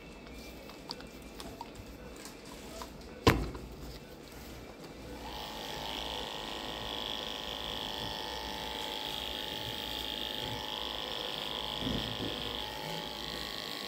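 Electric animal hair clippers switch on about five seconds in and run with a steady hum, shaving the fur from an anaesthetised dog's abdomen to prepare the surgical site for a spay. A single sharp knock sounds about three seconds in.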